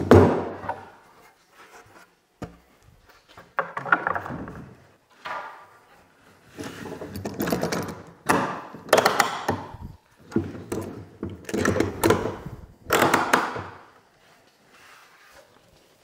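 A wooden board being flipped and shifted on a workbench and clamped down with toggle clamps: a sharp knock, then an irregular run of scrapes, clunks and clicks.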